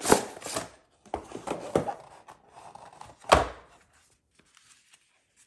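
Packaging of a GoPro Volta battery grip being opened and handled: a run of knocks and clicks, with one loud thump about three seconds in.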